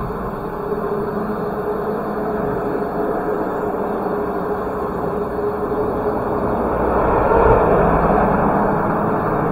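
A vehicle engine running steadily with a low hum, growing louder around seven to eight seconds in.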